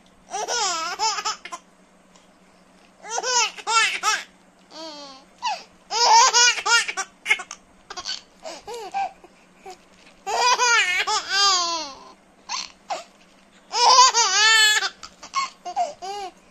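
Baby laughing in about six bouts of high, wavering giggles, each a second or so long, with short pauses between.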